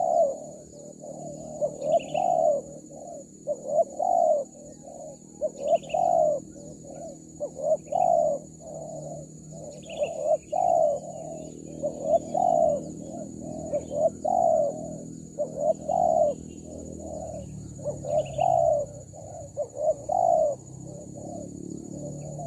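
Spotted dove cooing over and over, a phrase of two or three low coos about every two seconds. Short higher chirps come now and then over a steady high-pitched whine.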